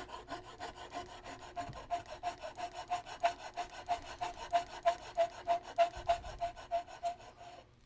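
Flat hand file stroking across the steel muzzle ends of side-by-side shotgun barrels held in a vise, flattening the muzzle face. The strokes are rapid and even, with a steady metallic ring under them, and stop near the end.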